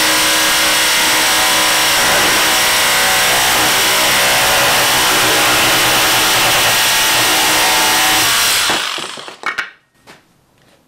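Bosch GST 18V-155 BC cordless brushless jigsaw cutting through a plywood board from underneath in an upside-down cut, running steadily and loud. The saw stops about nine seconds in, followed by a few brief knocks.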